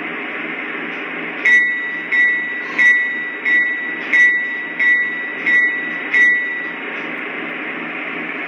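Lionel ES44AC model locomotive's onboard sound system playing a steady diesel engine rumble through its small speaker, with the locomotive bell ringing eight times at an even pace partway through.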